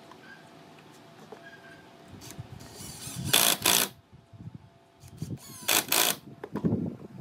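Cordless impact driver driving screws into a wooden chair frame in two short, loud bursts, one about three and a half seconds in and one about six seconds in, with knocks from handling the tool and wood around them.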